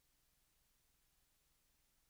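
Near silence: only a very faint, steady background hiss.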